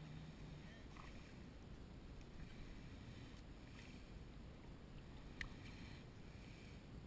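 Faint water and wind around a wading angler, with a few light clicks from handling a plastic fish lip grip, the sharpest about five seconds in.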